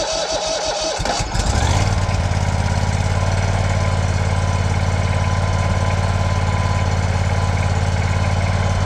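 Simplicity 16 hp lawn tractor engine being cranked by its electric starter with the choke pulled for a cold start; it catches about a second in and then runs steadily.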